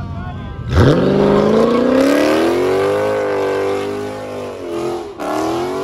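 A muscle car's engine revs up sharply from low to high revs about a second in and holds there as the car accelerates hard, pitch sagging slightly, then dips briefly near the end before climbing again.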